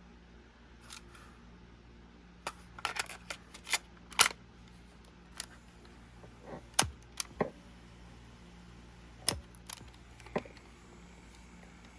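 Scattered plastic clicks and clunks of a Sony WM-FX28 cassette Walkman being handled, about a dozen in irregular clusters, over a faint steady hum.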